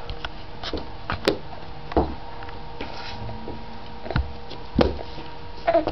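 A baby's hands slapping and patting a wooden floor close to the microphone: a few separate, irregular knocks.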